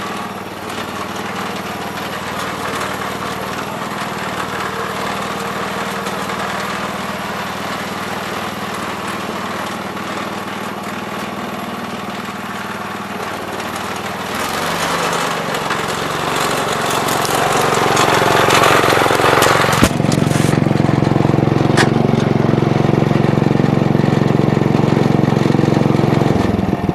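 Gravely 408 walk-behind tractor engine running steadily while plowing snow; about halfway through it grows louder and stays up under heavier work, then drops off sharply near the end.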